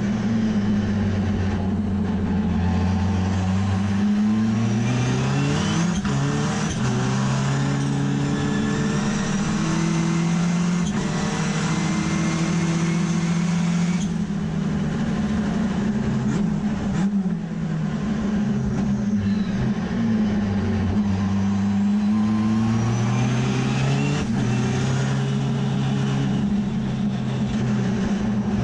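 Mazda RX3 race car's bridgeport-ported rotary engine at full throttle, heard from inside the cabin: the engine note climbs and drops back with each upshift. About halfway through it eases off with a brief dip for braking and downshifts, then pulls up through the gears again.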